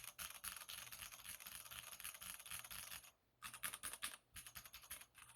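Fast typing on a mechanical keyboard fitted with swapped-on keycaps: a quick run of light key clacks, a short pause about three seconds in, then more keystrokes.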